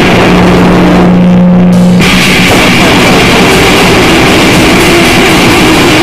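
Extremely loud, heavily distorted noisecore recording: a dense wall of distorted guitar and drums, with a steady low hum under it that drops out about two seconds in, where the noise changes texture.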